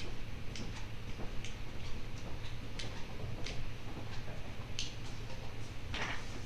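Computer keyboard keys clicking sparsely and at irregular intervals, over a steady low room hum.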